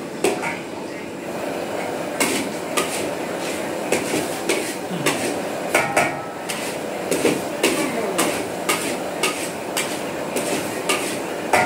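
Metal spatula stirring and scraping chhana (milk curd) around a metal wok, knocking against the pan about twice a second over a continuous scrape, as the curd is cooked down for sandesh.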